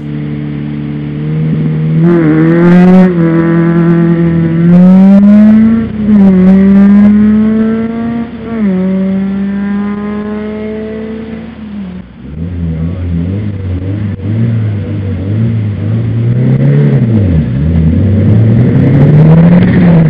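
A rally car's engine, heard from inside the cockpit, revving while the car waits at a stage start. It holds fairly high revs with repeated blips up and down. About twelve seconds in it drops to lower, unsteady revs, then climbs again near the end as the start approaches.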